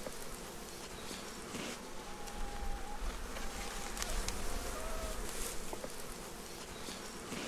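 Honeybee colony buzzing around an open hive: a steady hum, with a few faint clicks.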